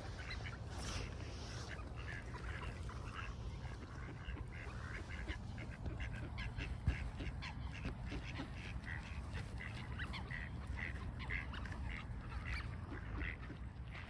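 A flock of mallard ducks giving many short, soft quacks, growing busier from about four seconds in, over a steady low rumble.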